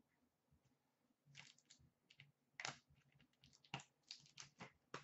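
Faint clicks and rustles of trading cards in plastic holders being handled and sorted by hand, a dozen or so short ticks starting about a second in.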